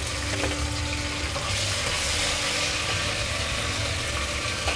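Sliced onions and freshly added garlic-ginger paste sizzling in hot oil in an aluminium pot: a steady frying hiss.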